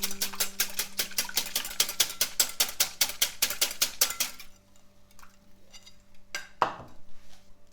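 A utensil stirring briskly in a bowl, clicking against the sides in a quick, even rhythm. It stops about four seconds in, followed by a couple of single clinks.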